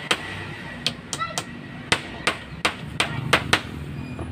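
Claw hammer driving nails into wooden battens: about ten sharp strikes in an uneven rhythm, some coming in quick pairs.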